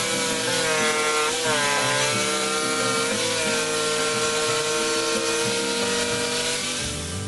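Electric jigsaw running and cutting through a wooden block: a steady motor whine over the rasp of the blade. The pitch dips briefly about a second and a half in as the blade bites.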